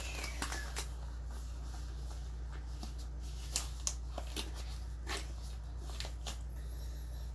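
Gloves being pulled on by hand: scattered short rustles and light snaps, over a steady low hum.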